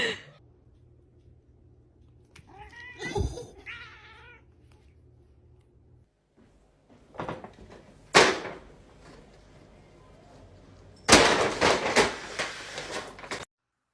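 A cat meows with a wavering, sliding pitch about three seconds in. Short noisy bursts follow, and the loudest and longest comes near the end.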